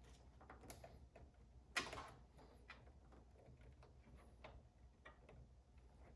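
Faint scattered clicks and rustles of cable connectors being handled and pushed into the sockets of a modular PC power supply, with one louder short scrape about two seconds in.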